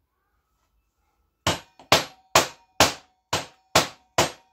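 Mallet knocking a round metal motorcycle part, about two sharp blows a second, starting about a second and a half in. The part rings faintly between the blows.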